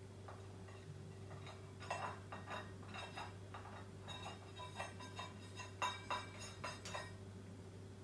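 Green-cheeked conure knocking its beak against a stainless steel food bowl: a run of irregular metallic clinks, several a second, starting about a second and a half in and stopping about seven seconds in. The conure usually does this when the bowl is empty or its contents don't satisfy it.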